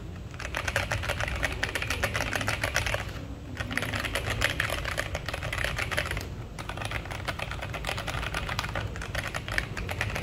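Fast typing on a Duke65 mechanical keyboard with Durock Koala tactile switches: a dense run of keystroke clacks, broken by two short pauses about three and six seconds in.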